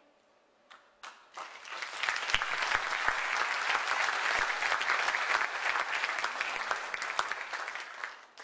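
Audience applause: a few scattered claps about a second in, swelling quickly into dense clapping that cuts off near the end.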